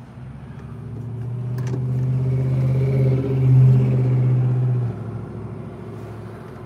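Sundown Audio subwoofers in a fourth-order bandpass box playing a deep, steady bass note, heard from inside the vehicle. It swells over the first few seconds, peaks about three and a half seconds in, and drops away suddenly about five seconds in.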